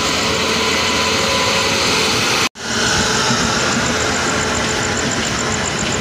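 Steady rushing rumble of a passenger train in motion, heard from inside a coach at an open window: wheel-on-rail and wind noise. It cuts out for an instant about two and a half seconds in, then resumes.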